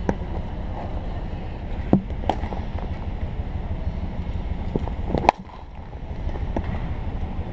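Wind buffeting the microphone of an action camera mounted on a cricket stump: a steady low rumble. A few sharp knocks cut through it, the loudest about five seconds in.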